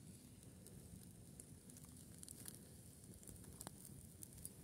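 Faint crackling of a small campfire of dry twigs and branches: scattered soft ticks and pops.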